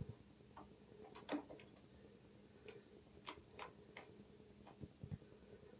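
Faint, irregular ticks and clicks of a hand screwdriver turning a screw into the pad mount on the side of an InMotion V11 electric unicycle. The screw is only being started a couple of turns, left loose so the pad can still be adjusted.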